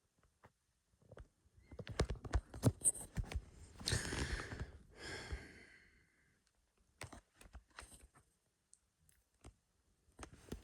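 Handling noises: a run of sharp clicks and knocks, then two longer rustling sounds a little past the middle, and a few scattered clicks near the end.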